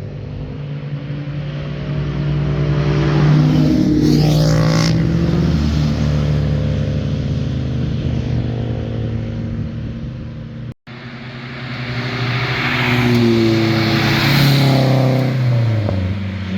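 Two cars driving past one after the other, engines pulling hard, each growing louder and then dropping in pitch as it goes by. The sound cuts off abruptly about two-thirds of the way through, between the two passes.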